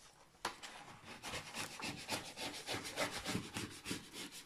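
Quick, repeated rubbing strokes of a pen-like tool over the plastic cover film of a diamond-painting canvas, pressing the film flat. It starts with a sharp scrape about half a second in, then runs on in rapid strokes.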